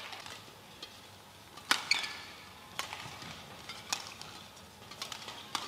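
Badminton rally: a feather shuttlecock is struck back and forth by rackets, making sharp hits about a second apart. The loudest hit comes a little under two seconds in.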